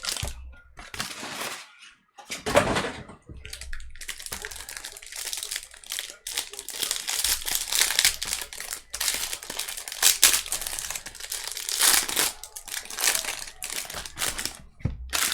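Plastic wrapping on a pack of trading cards crinkling and tearing as the cards are unwrapped and handled, in irregular rustling bursts.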